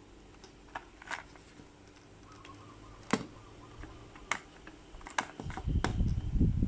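Sharp clicks and taps of small packaging being handled and opened, a few seconds apart, followed near the end by a louder low rumbling of handling noise.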